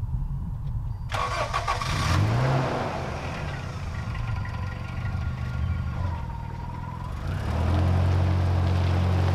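Toyota Van being started: the starter cranks for about a second, the engine catches with a brief rev and idles, then runs louder and steadier near the end as the van pulls away.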